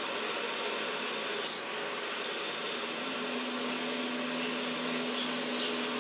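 A steady hiss, with one short, sharp, high-pitched click-beep about a second and a half in. The click-beep is a smartphone camera app's sound as the screen is tapped.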